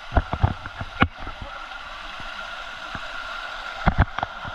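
Steady rushing hiss of a waterfall's falling water, with a few sharp thumps in the first second and two more near the end.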